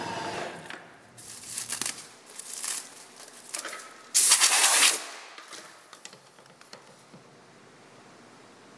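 Milling machine spindle winding down from a cut in plastic, followed by several short hisses of blown air clearing chips. The loudest and longest hiss comes about four seconds in and lasts nearly a second.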